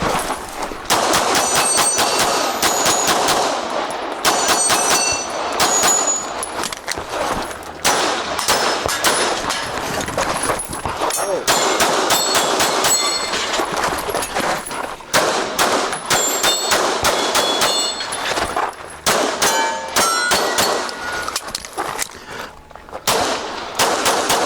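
Pistol fired in quick strings at steel targets over a practical shooting stage, with short pauses between strings. The hit steel plates ring with clear high tones after the shots.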